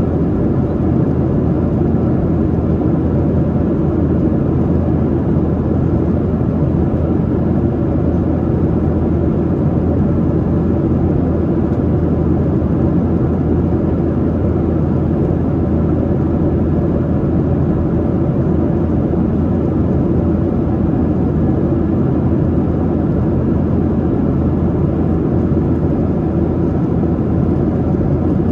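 Steady in-flight cabin noise of a Boeing 737-800: the low drone of its CFM56-7B engines and the rush of airflow, heard inside the passenger cabin.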